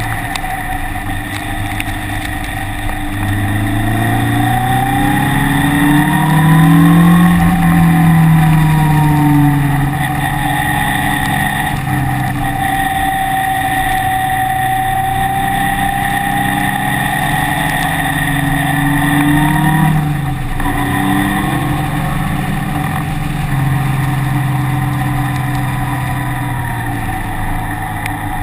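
Car engine under load on a circuit: it revs up hard about four seconds in, drops back, then pulls up again through a long climb. There is a short break in the engine note about two-thirds of the way through, and a steady high whine runs alongside throughout.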